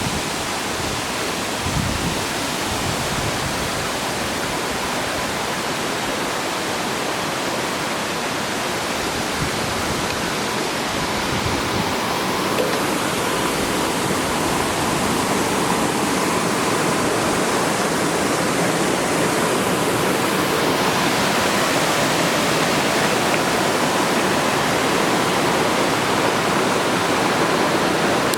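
Waterfall's steady rush of falling water, growing a little louder about halfway through, with a brief low bump about two seconds in.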